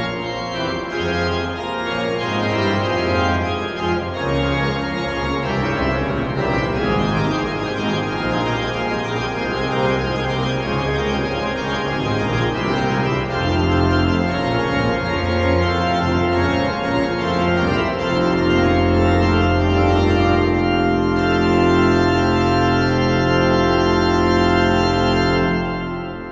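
The 1746 Hildebrandt baroque pipe organ playing the closing bars of a fugue, with a deep bass. About two-thirds of the way through it settles onto a long held final chord, which is released near the end and dies away in the church's reverberation.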